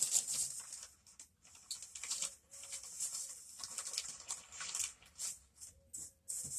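Irregular rustling and scuffing of tarot cards being handled while a misplaced card is searched for.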